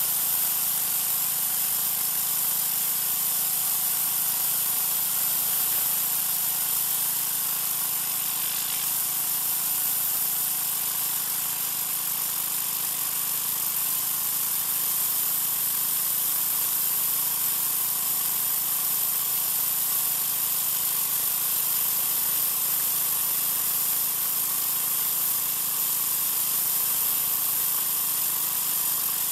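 Troy-Bilt 2200 psi gas pressure washer running steadily, its oscillating-tip water jet hissing against the concrete sidewalk.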